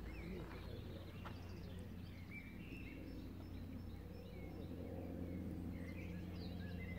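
Faint open-air ambience: scattered bird chirps over a steady low hum.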